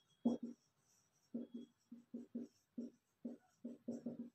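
Marker writing on a whiteboard: a quick run of about a dozen short, faint strokes as a line of handwritten words goes onto the board.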